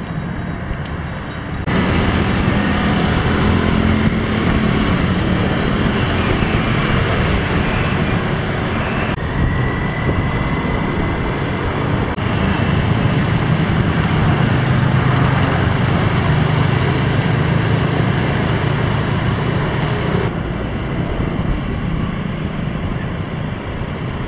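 Wind rushing over the microphone while cycling in city traffic, with the noise of cars and motorbikes on the road. The sound changes abruptly a few times.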